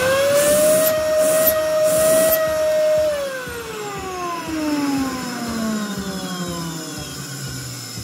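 LG C3249 NT canister vacuum cleaner's motor running with a steady whine, then cut off about three seconds in and winding down, its whine falling steadily in pitch.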